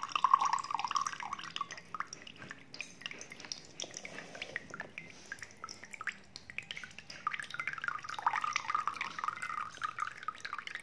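Water trickling and dripping from a tipped plastic cup of drinking water into a glass mug, an uneven patter of drops, with a fuller pouring stream at the start and again near the end.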